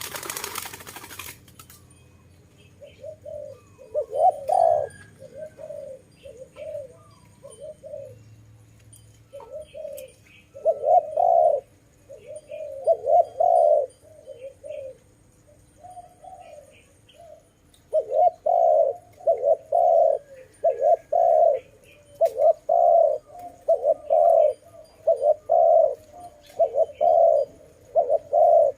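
Dove cooing: repeated low, hollow coo notes, scattered at first and then a steady run of coos, about one and a half a second, from past halfway. A brief rush of noise in the first second or so and faint high chirps of small birds in the background.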